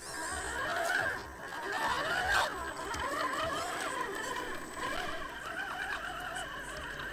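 Whine of an RC crawler's 55-turn electric motor and gears, its pitch rising and falling again and again with the throttle.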